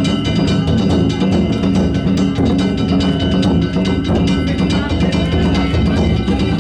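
Danjiri float's festival percussion: a taiko drum and small hand gongs (kane) played together in dense, unbroken beating, with the gongs' high metallic ringing over the drum.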